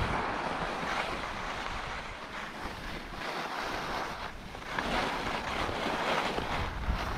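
Skis hissing and scraping over packed snow on a downhill run, with wind rushing over the microphone. The hiss rises and falls several times.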